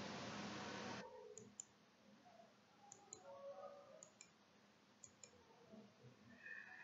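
Near silence: a steady hiss for about the first second that cuts off abruptly, then a handful of faint, scattered clicks.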